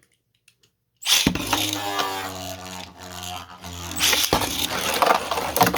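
3D-printed Beyblade spinning tops launched into the stadium, whirring and scraping with a whine that slowly falls in pitch as they spin down, with sharp knocks as they clash. The first second is dead silence before the sound cuts in.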